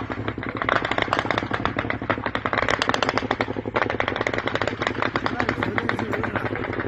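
Sustained automatic gunfire: many shots a second, without a break, as several guns keep firing.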